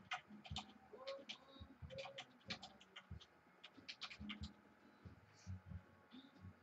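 Faint, quick, irregular clicks and taps of typing on a computer keyboard, thinning out after about four and a half seconds.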